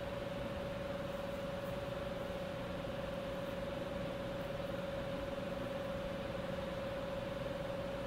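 Steady machinery hum: an even rush of noise with one constant mid-pitched tone and a weaker low hum beneath, unchanging throughout.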